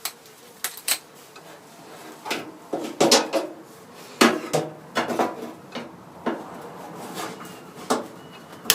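Irregular metallic clanks and taps, about a dozen, as the shaped arms of a resistance spot welder are worked into position around the sheet-steel rear valance of a Triumph TR4. The welder is not firing.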